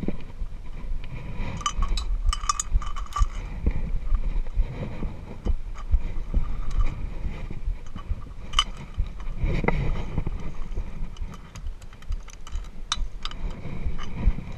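Low rumble of wind and handling noise on a body-worn camera's microphone, with metallic clinks and clicks of via ferrata carabiners against the steel safety cable and ladder rungs. The clinks come in clusters, some ringing briefly, a couple of seconds in and again near the end.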